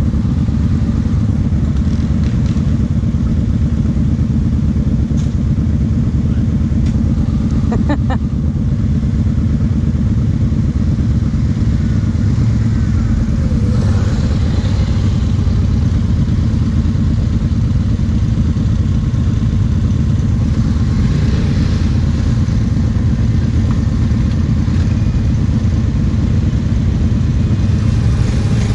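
Kawasaki KFX 700 quad's V-twin engine running steadily at low revs, close to the microphone, with a few light clicks about eight seconds in.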